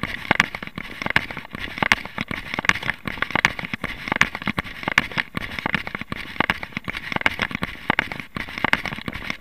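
Running footsteps crunching on a sandy gravel track, a steady rhythm of close to three strides a second.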